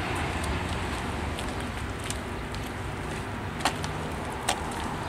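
Steady hum of traffic from a nearby road, with two sharp clicks less than a second apart past the middle.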